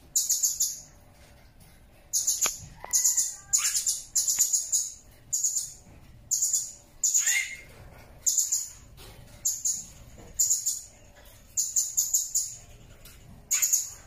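Blue-crowned hanging parrot (serindit) calling in short bursts of rapid, very high-pitched chirping notes, roughly one burst a second, a couple of them trailing off in a falling note.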